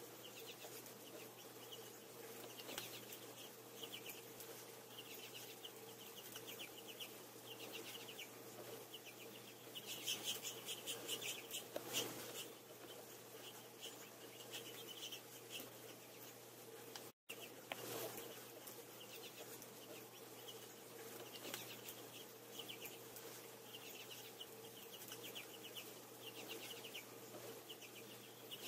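Finches chirping and twittering in short rapid bursts, busiest around ten to twelve seconds in, over a faint steady hum.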